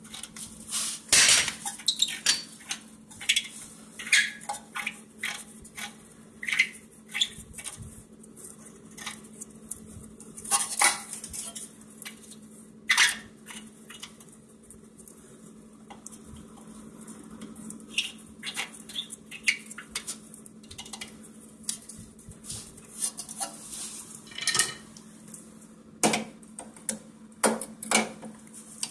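Hand tools and a steel bolt clinking and clicking irregularly against the strut and steering knuckle as the bottom strut bolt is loosened and worked out, over a faint steady hum.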